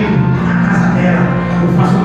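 Amplified gospel music with long held instrumental chords.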